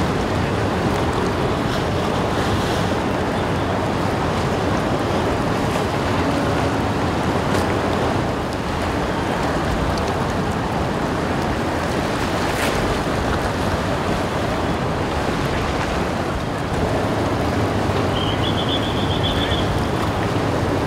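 Steady rushing of sea water churned against the quay by a docked ferry's propeller wash, with wind buffeting the microphone and a low, steady hum from the ship. A brief high warble sounds near the end.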